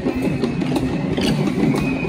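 Traditional drums of a procession troupe playing a dense, continuous beat, with a steady high wind-instrument tone over it.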